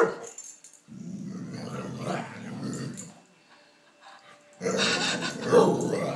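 Dog growling in play at a lampshade: a long low growl about a second in, then a louder growl starting about four and a half seconds in.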